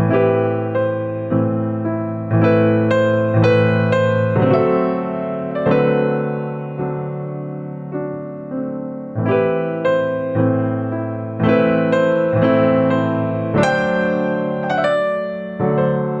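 Background piano music: a slow melody of struck notes and chords, each fading before the next.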